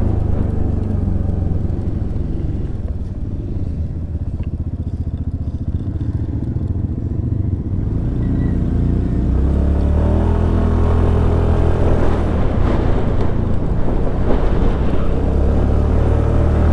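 Suzuki Burgman Street 125 scooter's single-cylinder four-stroke engine running on the move. The engine eases off a couple of seconds in, then picks up again about ten seconds in.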